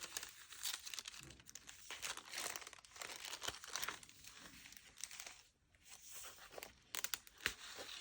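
Paper rustling and crinkling as the pages and loose printed paper pieces of a handmade junk journal are handled and turned, in irregular bursts with a brief lull about five and a half seconds in.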